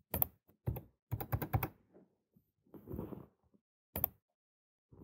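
Computer keyboard keys tapped in short bursts: two single clicks, a quick run of about five keystrokes, a duller knock about three seconds in, and one last sharp click about a second later.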